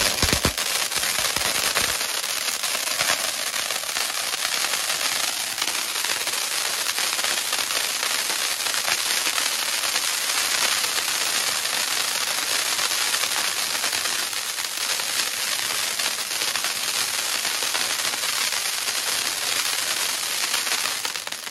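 A large fountain firework spraying sparks with a loud, steady hiss and crackle, dying away near the end.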